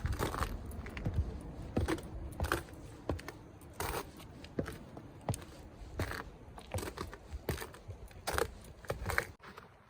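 Footsteps crunching underfoot at a walking pace, a short scraping step about every half second to a second.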